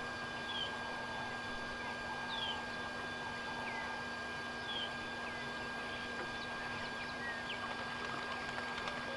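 Egyptian goose goslings giving short, high, falling peeps, scattered every second or so, over a steady background hum.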